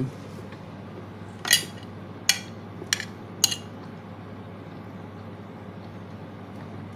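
A spoon clinking against a dinner plate: four short, sharp clinks over about two seconds, then only a faint steady hum.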